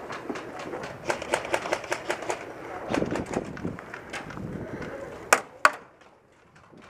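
Airsoft gunfire: a run of snapping shots and BBs striking cover, ending with two much louder sharp cracks close together near the end.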